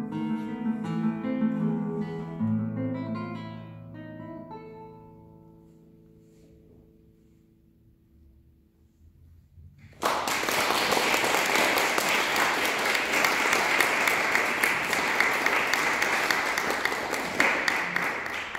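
Nylon-string classical guitar playing the last notes of a piece, the final notes ringing out and dying away over several seconds. After a short silence, an audience suddenly breaks into applause that lasts about eight seconds.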